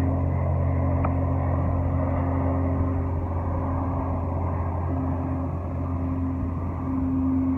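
Large gong on a stand droning: a steady low hum, with a higher moaning tone that breaks off and comes back several times.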